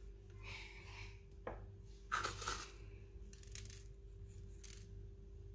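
Faint short rustles and light patters of sesame seeds being pinched and sprinkled by hand onto egg-washed dough on a baking tray, the loudest a little after two seconds in. A steady low hum runs underneath.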